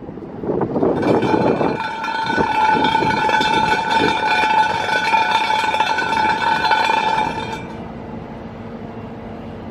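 A steady high buzzing tone with several overtones starts about a second in, holds for about six seconds and then stops, leaving a fainter low steady hum.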